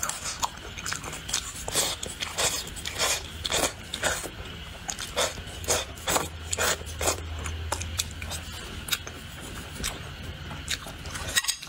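Close-miked eating: many short wet clicks and smacks of chewing, with wooden chopsticks tapping and scraping on a plate as the last grains of rice are picked up. A low steady hum runs underneath, stronger in the middle.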